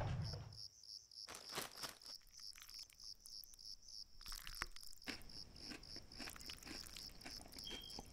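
Crickets chirping steadily, about four to five chirps a second, with scattered crinkles of a chip bag and crunches of potato chips crushed in the hand.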